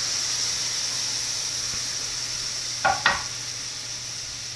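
Batter-soaked bread and freshly poured vegan batter sizzling in a hot nonstick frying pan greased with vegan butter spread, a steady hiss that slowly fades. About three seconds in, two brief clinks.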